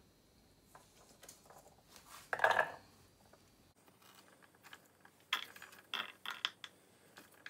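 Pieces of chopped carrot dropped by hand into a stainless steel pot, landing as a handful of light clinks about five to seven seconds in. A short clatter about two and a half seconds in.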